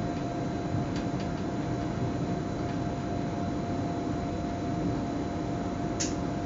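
Steady running noise of an electric S-Bahn train heard from inside the driver's cab, with a constant high-pitched whine. Faint clicks come about a second in, and a short, sharp click comes near the end.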